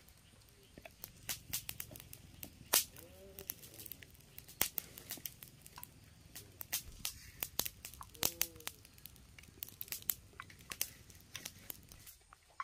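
Irregular crackling and tearing as hands break open and peel the skin off cooked sweet potatoes.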